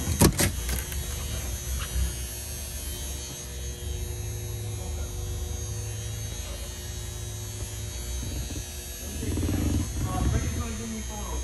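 A steady low hum, with a few sharp knocks right at the start and brief voices near the end.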